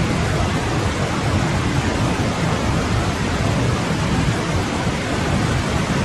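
Forest stream flowing: a steady rushing of water with a strong low rumble.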